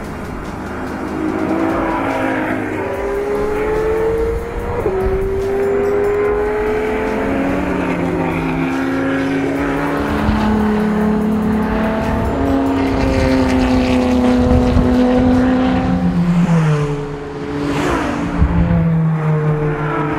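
Ferrari LaFerrari's V12 engine at high revs on track, rising in pitch through the gears with a quick upshift about five seconds in. Near the end it drops in pitch and level briefly as the car slows, then picks up again.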